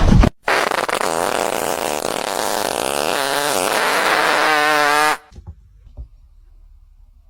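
One long, loud fart sound lasting about five seconds, rough and noisy at first and turning into a wavering, pitched buzz before it cuts off.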